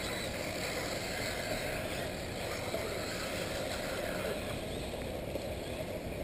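Electric 1/8-scale RC off-road buggies running on the track, a steady whine under low wind buffeting on the microphone.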